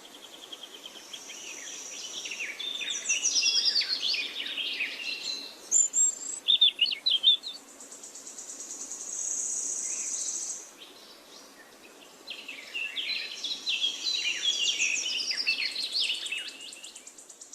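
Songbirds singing: two long outpourings of fast, tumbling, falling notes, one early and one near the end, with a brief run of sharp, louder notes in between. A high, steady buzz comes and goes alongside the song.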